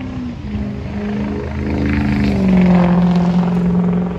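Diesel locomotive engine of an approaching Amtrak passenger train, a steady drone whose pitch steps down slightly about a third of a second in and again about halfway through, growing louder toward the middle.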